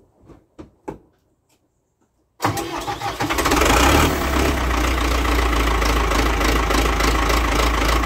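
Ford 6610 Force II tractor's four-cylinder diesel engine cranked by a new high-torque geared starter, catching after a brief crank and settling into a steady run. This is a cold start made without the excess-fuel button or the manifold heater. A few light clicks come first.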